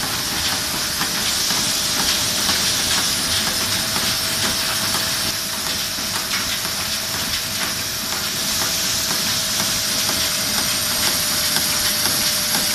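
Component tape-and-reel machine running: a steady high hiss with a faint steady tone under it and light, irregular mechanical clicking from the feed.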